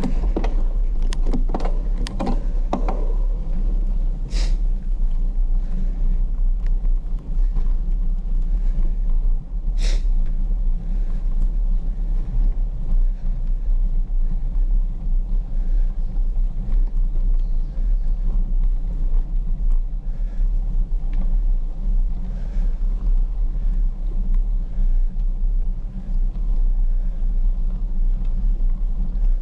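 Steady low rumble of wind buffeting a handlebar-mounted GoPro HERO11 Black's microphone, with wind noise reduction off, while riding a bicycle. A few sharp clicks or knocks come in the first few seconds, one about four seconds in and another around ten seconds in.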